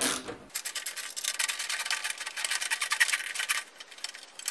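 A rapid, even run of small ratcheting clicks as the rear turn-signal mount is fastened by hand, thinning to a few scattered clicks near the end.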